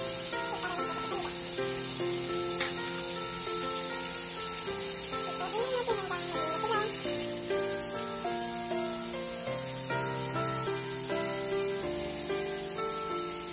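Flour-coated fish deep-frying in hot oil in a frying pan, giving a steady bubbling sizzle that drops in level suddenly about seven seconds in. Background music plays over it.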